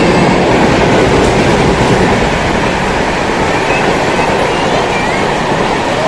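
A train running along the track: a loud, steady rumble and rattle of the wheels, with a few faint short squeaks.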